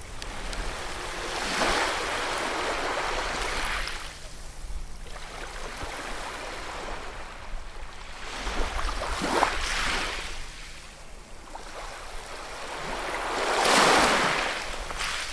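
Ocean waves breaking and washing in, in three surges, with the loudest building up near the end.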